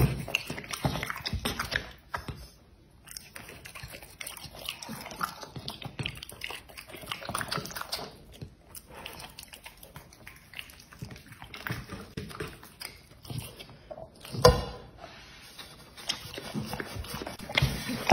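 A dog chewing and smacking on a boiled egg, with irregular wet mouth clicks and biting sounds. About 14.5 seconds in there is one sharper knock. Near the end the chewing gets busier as the dog works at its plate.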